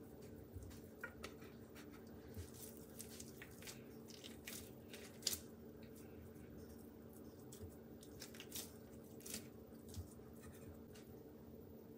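Hands shaping soft, floured biscuit dough: faint scattered squishes and light taps, with one sharper click about five seconds in. A steady low hum runs underneath.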